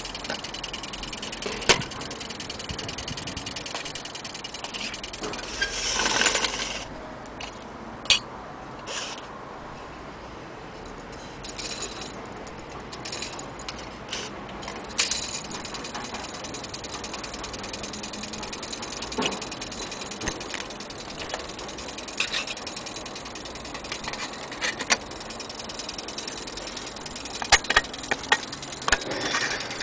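Scattered sharp clicks and light metallic rattles over a steady hiss, with a louder rustle about six seconds in and a run of quick clicks near the end.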